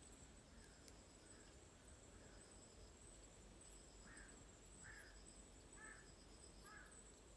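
Faint forest ambience: insects trilling steadily at a high pitch, with a bird giving four short calls about a second apart in the second half.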